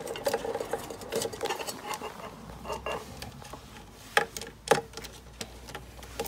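Wires and plug-in terminal connectors being handled inside a sheet-metal controller box: scattered light clicks, rustles and taps, with two sharper knocks about four seconds in.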